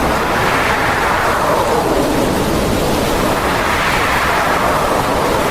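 Hurricane wind and heavy rain: a loud, steady rush whose pitch slowly sweeps up and down every two or three seconds as gusts rise and fall.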